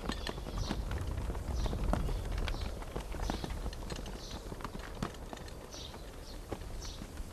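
Footsteps of a column of soldiers marching on a dirt street: a dense, irregular stream of boot steps and scuffs.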